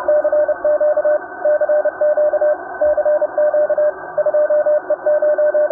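Morse code: a single steady tone keyed on and off in quick dots and dashes, like a ham radio CW signal, over a steady radio receiver hiss.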